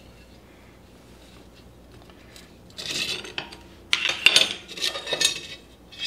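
Steel clattering and clinking, starting about three seconds in: a freshly drilled square steel tube being knocked about and lifted off a steel work table from under a magnetic drill's annular cutter, with sharp ringing knocks.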